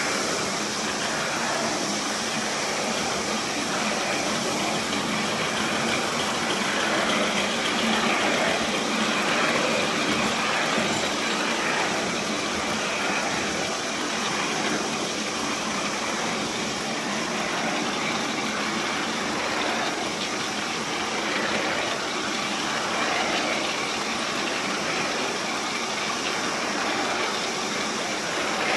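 3½-inch gauge Heilan Lassie live-steam model locomotive running along a raised track: a steady rush of steam and running noise that keeps on without a break.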